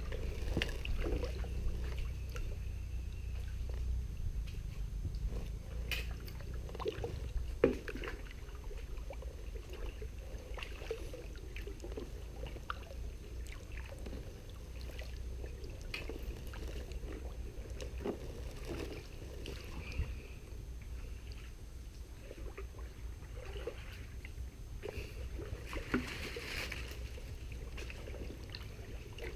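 Kayak paddling on a river: water splashing and dripping off the paddle with irregular small splashes and knocks, over a low steady rumble.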